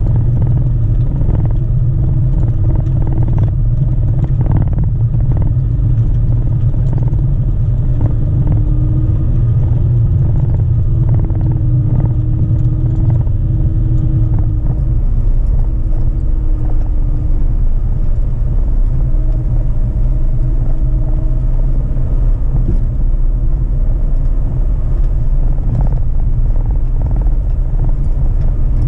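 Dacia Duster 4x4's diesel engine and Falken Wildpeak all-terrain tyres heard from inside the cabin while driving a gravel dirt track: a steady low rumble with occasional knocks and clatter over bumps.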